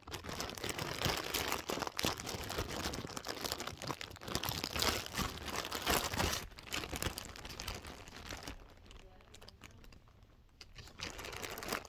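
Plastic zip-lock bags crinkling as they are handled and zipped shut, the crackling dying down after about eight seconds.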